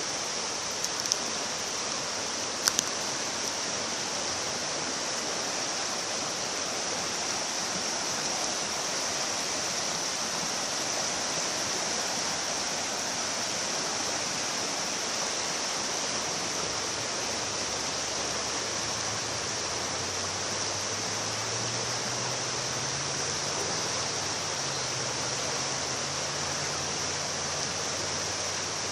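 Pacolet River water rushing steadily. Two sharp clicks in the first few seconds, and a faint low hum that joins about two-thirds of the way through.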